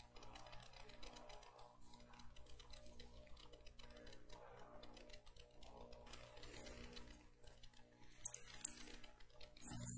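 Near silence with a low steady electrical hum and faint, irregular light taps and clicks from hands at the pulpit. A few sharper clicks come about eight seconds in, and a louder sound starts just at the end.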